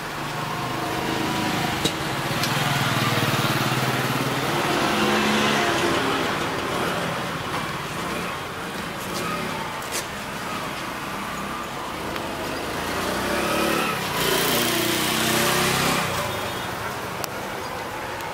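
Background road traffic: motor vehicles passing with engine hum, swelling twice and dying away, with a few sharp clicks.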